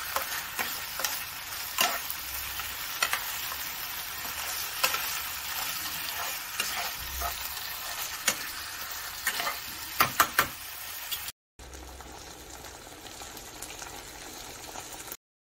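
Stuffed bitter gourds sizzling in a nonstick pan of thick masala gravy while a slotted metal spoon stirs them, clicking and scraping against the pan. A little after eleven seconds the sound cuts off abruptly and gives way to a quieter, steady sizzle.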